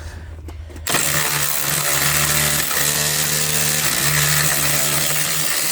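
Handheld power tool's motor starting about a second in and running steadily as it spins out a 10mm bolt, with a couple of brief dips in its pitch.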